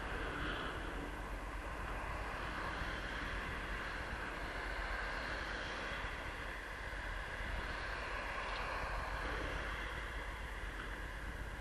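Steady road and wind noise from a Superpedestrian electric scooter under way, with no sudden events.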